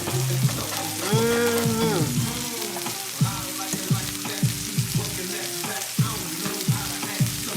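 Pan of string beans and Hennessy glaze sizzling on the stove, with a song playing in the background.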